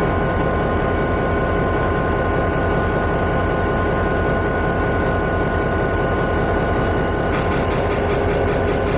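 EMD SD40-2 diesel locomotive's 16-cylinder two-stroke engine idling steadily up close, with a steady whine over the low engine pulse. A rapid rhythmic clatter joins in near the end.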